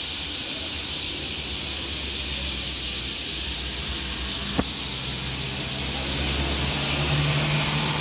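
A dense chorus of small birds chirping and chattering in trees, a steady high twittering mass of calls. Under it runs the low hum of a vehicle engine, louder near the end, and a single sharp click sounds about halfway through.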